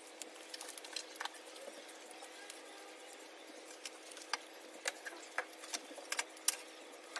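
Small cardboard boxes being handled, with scattered light taps, clicks and rustles as they are picked up and set down on a table, the sharper taps coming after about four seconds. A faint steady hum runs underneath.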